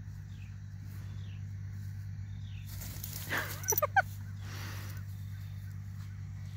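A small dog gives a few short, high whines about three and a half seconds in, amid a brief rustle, over a steady low hum.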